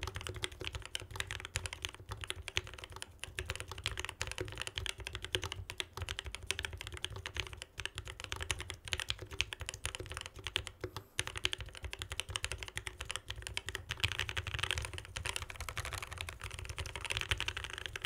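Quantrik Kyuu mechanical keyboard with a brass plate and lubed, filmed Key Dot Co Tangerine linear switches being typed on steadily: a continuous run of high-pitched keystrokes.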